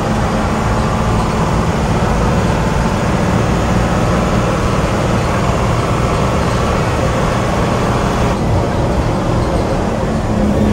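Old bus's diesel engine running under way, loud inside the driver's cab, with the deep note of its loud "worrr" exhaust. The sound softens a little about eight seconds in.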